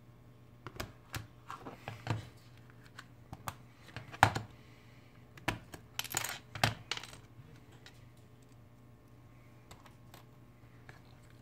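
Irregular sharp clicks and clinks of small metal and plastic parts handled during a phone teardown, a dozen or so spread over about six seconds, the loudest near the middle.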